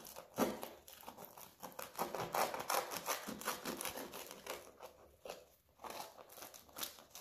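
Knife cutting into the crisp, puffed shell of a fried gnocco fritto, giving a dense run of small crackles and crunches as the piece is handled.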